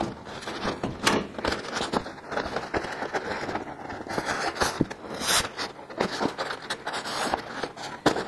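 Thin cardboard template crinkling and rustling as it is pressed and folded by hand against a curved sheet-metal truck cab corner, with scattered scrapes and a few sharper crackles.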